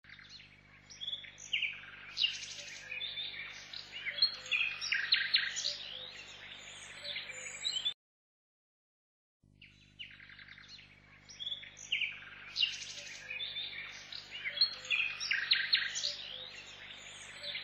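Small birds chirping and twittering in a busy chorus of short calls and trills over a low steady hum. The same eight-second stretch plays twice, with a silent gap of about a second and a half between.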